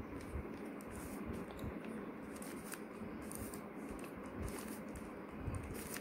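Plastic 3x3 Rubik's cube being turned layer after layer by hand: faint, irregular clicks and rubbing of the plastic pieces as a solving algorithm is carried out.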